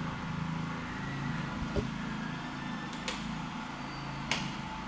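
Steady low hum of a generator running, with three sharp clicks of wall light switches being flipped, spaced about a second apart.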